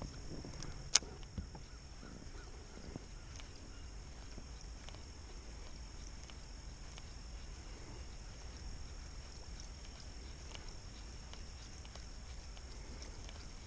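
Quiet outdoor ambience: a steady high-pitched insect drone with a low wind rumble, broken by a sharp click about a second in and a softer one just after.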